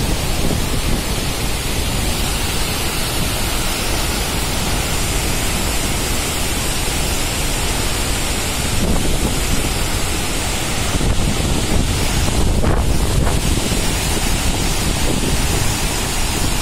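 Loud, steady roar of water discharging from a dam with all its gates open, pouring down the spillway and blasting out as a spray jet, with wind buffeting the microphone.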